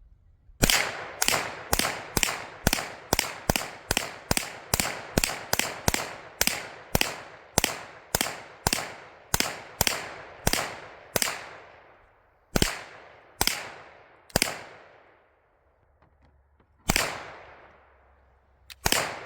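A long string of gunshots fired in quick succession, about two to three a second, each with a short fading echo. Near the middle the shots slow to a few spaced ones, then after a pause of about two seconds a few more shots come near the end.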